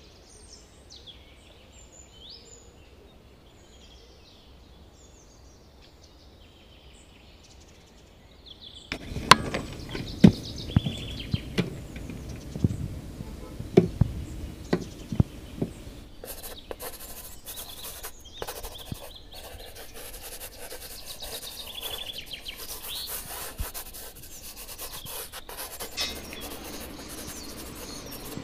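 Birds chirping faintly for the first nine seconds or so, then a run of sharp knocks and taps. From about halfway on, a pencil scratches and rubs on paper, steadily and continuously, as it sketches.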